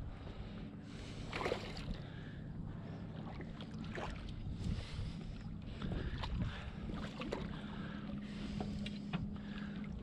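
A hooked speckled trout splashing at the surface as it is reeled in to the boat, with several short splashes and knocks. Underneath are wind on the microphone and a steady low hum.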